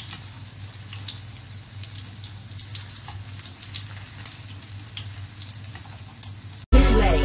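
Banana bread rolls frying in a pan of hot fat: a steady sizzle with small crackles over a low hum. About 6.7 seconds in it cuts off abruptly and loud music starts.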